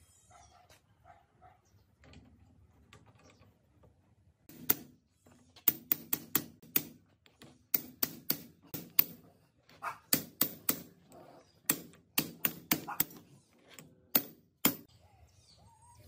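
Hammer blows on a metal pipe used as a drift, driving a ball bearing down onto a BMW gearbox mainshaft. About twenty sharp metallic strikes come in quick groups of three to five, starting about five seconds in and stopping about a second before the end.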